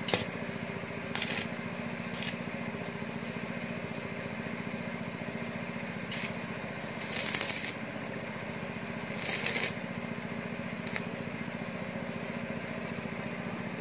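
Stick welder tack-welding a steel flower-rack ring to its square-tube leg: about seven short bursts of arc noise, the longest about half a second, over a steady low hum.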